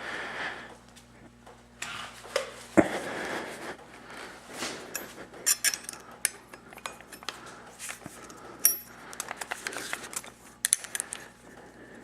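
Metal tools and parts being handled: scattered clinks and clatters over a low steady hum, the sharpest about three seconds in and again near nine seconds.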